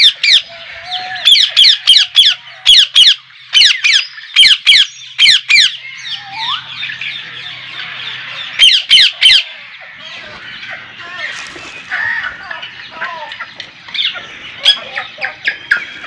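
Captive birds squawking: loud harsh screeches come in quick runs for the first several seconds and again briefly about nine seconds in, then give way to a busy chatter of many birds calling at once.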